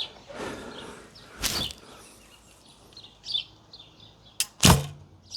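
A recurve bow with Nik'a S2 Windstorm ILF limbs at 30 lb draw is shot near the end: a short sharp click, then the loud thump of the string with a brief low twang as the arrow is released. Birds chirp faintly throughout.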